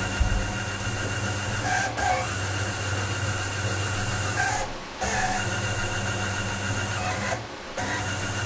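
Stepper motors of a CNC-converted PM-25MV mill driving the table along its lead screws at the rapid jog speed, a steady whine. It runs in three stretches with short breaks, just before halfway and again about three quarters in, as the joystick is pushed and released.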